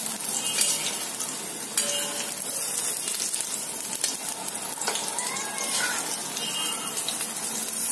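Batter-coated green bean pakoras sizzling as they shallow-fry in a little oil in a metal wok, frying until browned. A metal spatula scrapes and taps against the pan a few times as it turns them.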